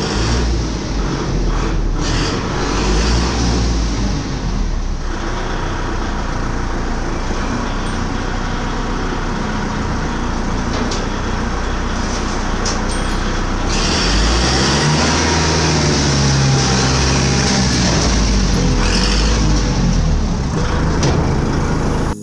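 Tractor diesel engine running with its silencer removed, heard from inside the truck container as the tractor is driven up the steel loading deck. The engine note rises and falls a couple of times in the second half.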